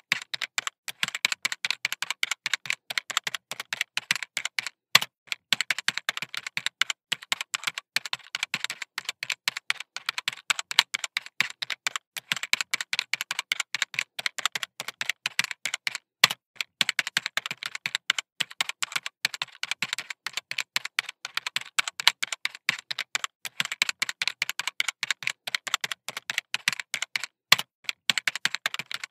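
Fine-tip pen tapping and scratching on sketchbook paper as it draws tiny circles: a fast, uneven run of small clicks, several a second, with a few brief pauses.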